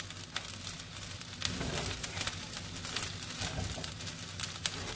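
Stir-fried rice noodles sizzling in a stainless steel pan with scattered crackles while chopsticks toss them.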